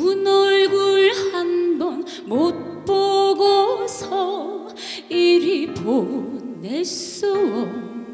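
A woman singing a slow Korean trot ballad into a microphone over backing music, holding long notes with a wide, wavering vibrato.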